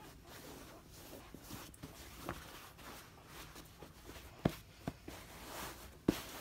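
Hands handling a stuffed fabric pillow: faint rustling of cloth, with a few soft pats, two about four and a half seconds in and one near the end.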